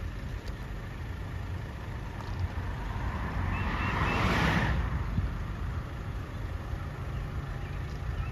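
A car drives past close by on the road, its tyre and engine noise swelling to a peak about four seconds in and fading away, over a steady low rumble.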